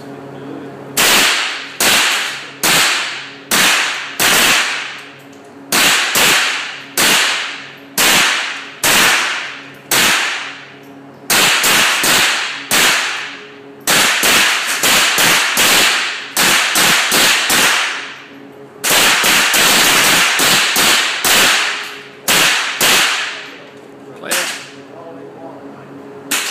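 Semi-automatic .22 LR rifle fire from a Ruger 10/22 with an Archangel stock and a CMMG .22 conversion AR-15 on an indoor range. Each sharp crack trails a long echo. Shots come about one a second at first, then in quicker strings of several shots from about eleven seconds in.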